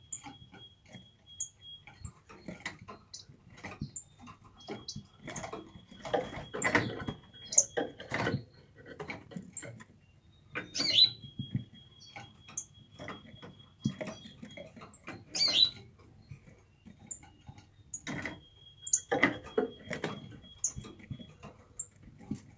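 An ortolan bunting feeding: irregular runs of sharp clicks and crackles as it husks seeds in its beak and pecks, thickest in a few bursts. Two brief high squeaks come in the middle, and a faint steady high tone comes and goes.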